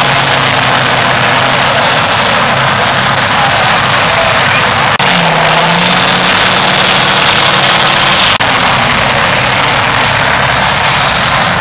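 Tatra 815 6x6 trial truck's diesel engine running hard under load as the truck climbs a steep dirt slope, with a high whistle that slowly falls in pitch over the engine noise.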